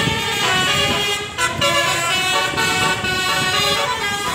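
Tunggal Jaya bus's 'telolet' basuri multi-tone air horn playing a tune: a run of stepped horn notes, with short breaks about a second in and near the end.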